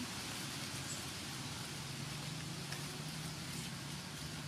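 Steady outdoor background hiss, with a low steady hum that sets in about a second and a half in.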